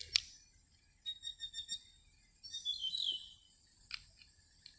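Songbird calling: a quick run of short, evenly repeated chirps, then a falling series of chirps. A sharp click comes just after the start, with two softer clicks near the end.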